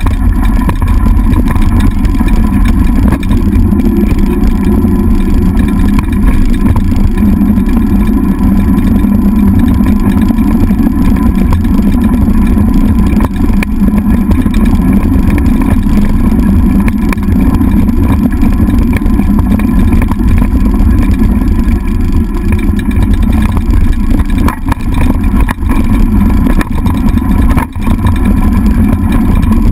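Dog scooter rolling fast over a gravel track: a steady, loud rumble of the wheels and frame vibration, picked up by a camera mounted on the handlebars.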